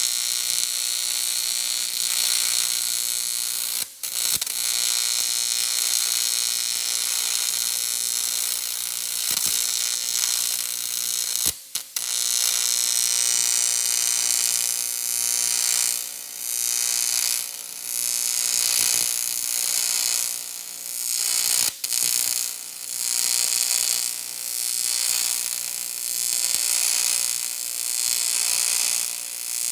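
TIG welding arc on an aluminium intake manifold at about 175–180 amps, buzzing steadily with the hum typical of AC welding on aluminium. The arc cuts out briefly a few times. In the second half the buzz swells and dips about every second and a half as the welding goes on.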